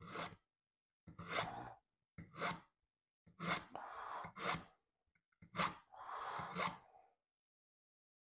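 A knife blade drawn against the edge of a sheet of paper seven times, about a stroke a second, each a short scrape and crinkle, some trailing a brief rustle of paper. The paper crinkles instead of slicing cleanly because the edge is still dull.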